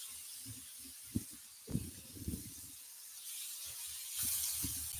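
Pork belly slices sizzling on an electric grill pan, a steady hiss that grows louder in the last couple of seconds. A few soft low thumps come in about a second or two in.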